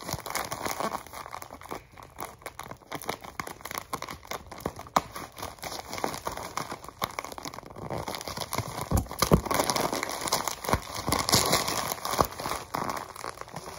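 Plastic mailer bag crinkling and rustling as it is pulled and torn open by hand, in irregular crackles that get busier in the second half.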